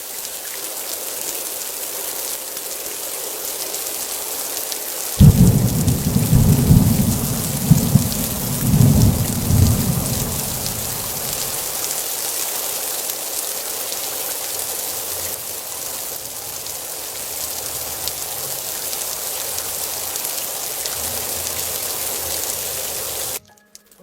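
Heavy rain falling steadily. About five seconds in, a sudden thunderclap breaks into a deep rolling rumble that swells several times and dies away over about five seconds, the loudest thing heard.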